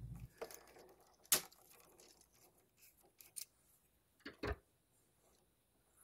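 Faint clicks and knocks of a screwdriver working a terminal screw on a GFCI receptacle and the outlet being handled, with one sharper click about a second in and a couple of duller knocks later on.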